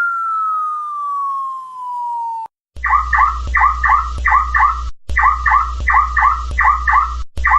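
Cartoon-style falling-bomb whistle, one steady tone dropping in pitch that cuts off suddenly about two and a half seconds in with no explosion. After a short gap comes a synthetic alien sound effect: rhythmic paired chirping calls over a low hum, repeating in phrases with brief breaks.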